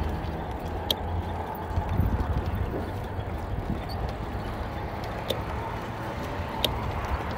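E-bike rolling along a concrete path, with wind buffeting the handlebar-mounted microphone as a steady low rumble. Three sharp clicks at irregular intervals, the handlebar rig knocking over bumps in the pavement.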